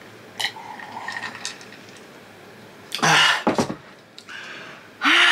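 Eating utensil clinking against a bowl as rice is mixed: one sharp clink with a short ring about half a second in, then a few light clicks. Two loud throat noises follow, one about three seconds in and one at the very end, like throat clearing.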